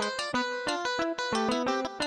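Background music: a quick, even run of plucked, guitar-like notes.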